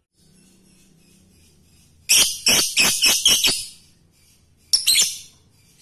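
Lovebird calling: a quick run of about seven sharp, high-pitched chirps starting about two seconds in, then a shorter burst of two or three chirps near the end.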